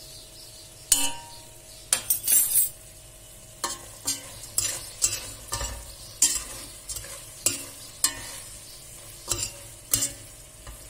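Metal spoon scraping and clinking against a stainless steel pot as cubes of cooked lamb are stirred, in irregular strokes about two a second, over a light sizzle of the meat in melting tail fat.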